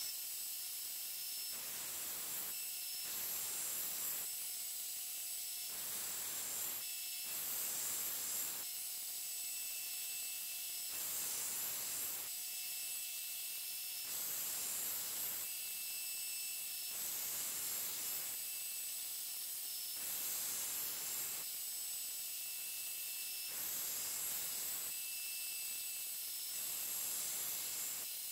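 Belt grinder running with a knife blade of 52100 carbon steel pressed against the belt over the flat platen in repeated passes. It gives a steady hiss and whine, with a louder grinding rush about every two seconds as the blade is worked on the belt.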